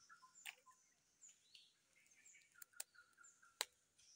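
Faint forest bird calls: short chirps repeated every half second or so. A few sharp clicks break in, the loudest about three and a half seconds in.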